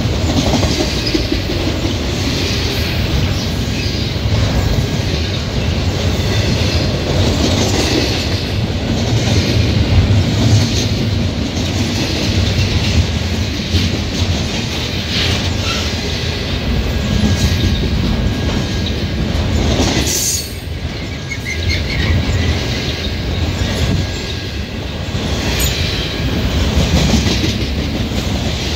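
Double-stack intermodal freight train's loaded well cars rolling past close by: a steady, loud rumble of steel wheels on the rails with clattering over the rail joints.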